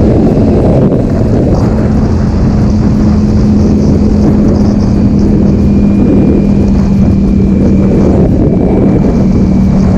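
Ducati Panigale V4S's 1103 cc V4 engine running under way at a nearly constant engine speed, its steady note sagging only slightly over the seconds, with heavy rushing noise beneath it.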